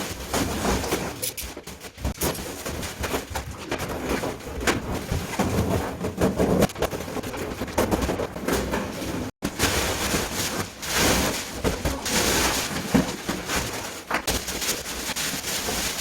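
Renovation work sounds in a bare room: scattered knocks and clatter over an uneven noisy background. A little past halfway the sound drops out for an instant.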